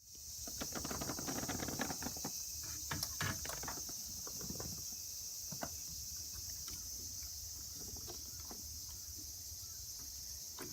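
Steady high chirring of insects with a low rumble underneath, and scattered small clicks and rustles, busiest in the first few seconds.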